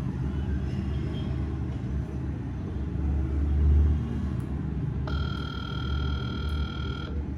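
A steady low rumble; about five seconds in, a steady electronic phone tone sounds for about two seconds while a call is being placed.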